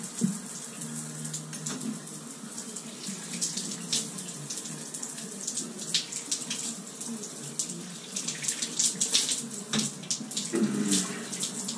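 Shower running: water spraying from the showerhead and spattering on the tiled stall.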